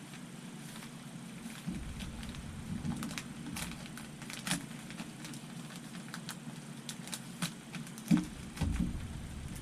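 Hands handling small plastic parts and packaging: scattered light clicks and taps, with a few heavier knocks about 8 seconds in.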